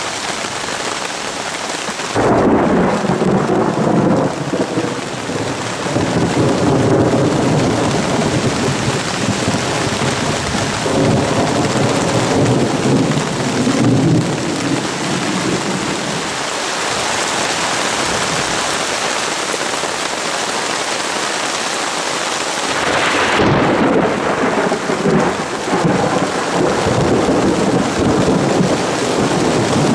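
Thunderstorm: steady heavy rain on water, with a long roll of thunder breaking out about two seconds in and rumbling for over ten seconds, then a second roll near the end.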